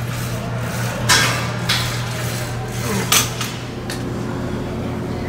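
Metal gym weights clanking: about four sharp metallic knocks, the loudest about a second in and about three seconds in, over a steady low hum.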